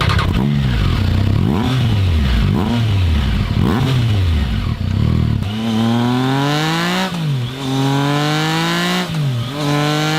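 Triumph Daytona 675R's inline three-cylinder engine with an aftermarket exhaust, first blipped in quick revs up and down several times. About five seconds in it pulls through the gears, the pitch climbing steadily and dropping sharply at two upshifts.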